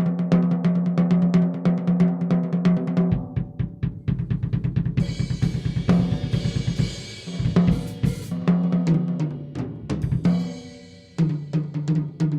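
Pearl Vision birch drum kit played in rapid strokes on snare, toms and bass drum. A cymbal crashes and washes over the middle, the playing eases off, then a new run of strokes starts on a lower drum near the end.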